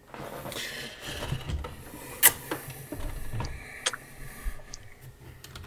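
Rubbing and rustling handling noise with scattered clicks, the sharpest knock about two seconds in.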